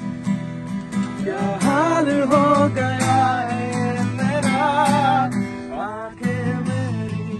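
Acoustic guitar strummed in a steady rhythm, with a man singing a melody over it from about a second in until just past five seconds.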